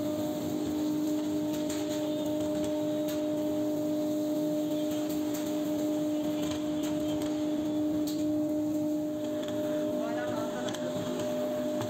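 CNC router spindle running with a steady whine as the bit carves a wooden bed panel, over the rushing noise of the cut and the dust extraction.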